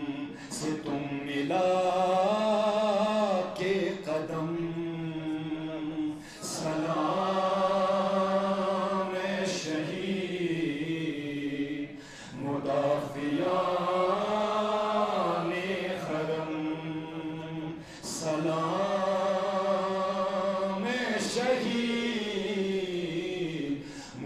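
A man's voice chanting a devotional salam (elegy for the martyrs) into a microphone, in long drawn-out melodic phrases that rise and fall, with a short break for breath about every six seconds.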